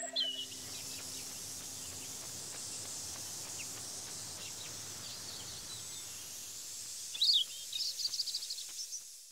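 Outdoor nature ambience: a steady soft hiss with birds chirping, one call about seven seconds in and a quick run of chirps near the end, before it fades out.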